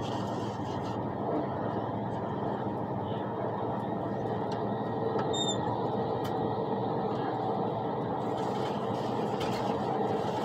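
Steady running noise of an ICE high-speed train heard from inside the passenger car as it travels at speed, an even rumble of wheels on rails.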